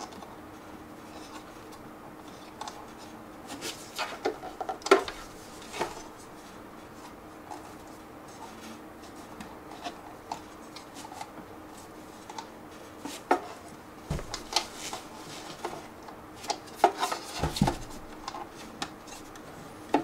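Scattered clicks, scrapes and light knocks as the front cover of an Akitio Thunder2 Quad hard-drive enclosure is handled and pressed back into place, with two dull thumps in the second half.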